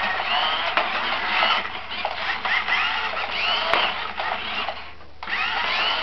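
Small electric motors of toy remote-control cars whining in short runs, the pitch rising and falling as they speed up and slow down, with a few sharp knocks. The whine drops away briefly about five seconds in, then starts again.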